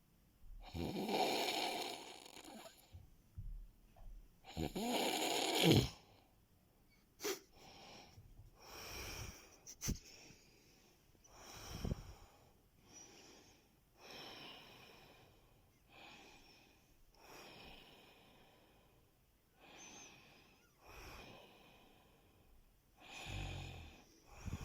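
A man snoring in his sleep: two loud snores in the first six seconds, then a run of quieter snoring breaths about every one to two seconds, with another loud snore near the end. A couple of sharp clicks come in between.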